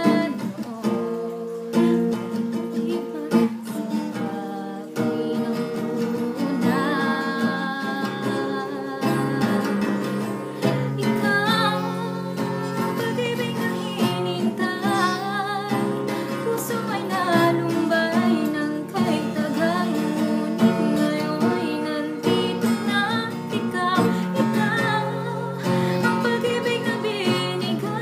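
A woman singing a slow Tagalog pop ballad to her own strummed acoustic guitar.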